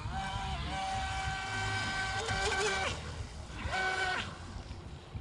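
Electric RC speedboat's motor, driven by a 120A speed controller on a 3S battery, whining under throttle. It runs at high pitch for about two and a half seconds, drops off, then gives a second short burst about four seconds in, over a low rumble of wind and water.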